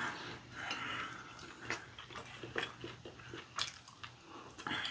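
People biting and chewing glazed fried chicken, with scattered small wet mouth clicks.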